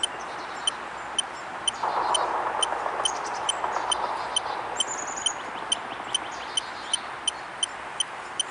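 An electronic ghost-hunting device ticking steadily about twice a second, with a stretch of hiss between about two and five seconds in. A short high chirp sounds about five seconds in.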